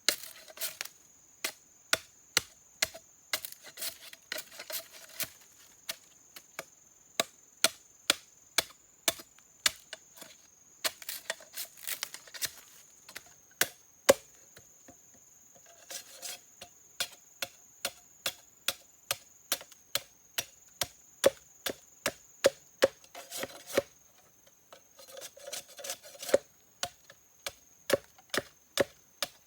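Repeated chopping into wood, sharp strikes about two a second, in runs broken by short spells of scraping.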